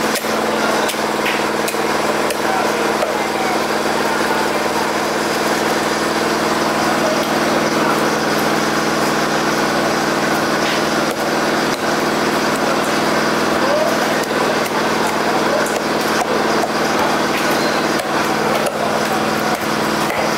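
A small motor runs with a steady hum throughout. Over it come irregular sharp taps and knocks of a heavy knife striking a chopping block and scraping through the flesh and bone of a giant trevally as it is filleted.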